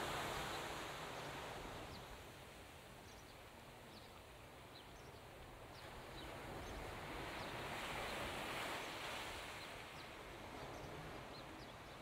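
Faint outdoor ambience: a soft rushing hiss that fades, then swells again and fades, with scattered tiny high chirps throughout.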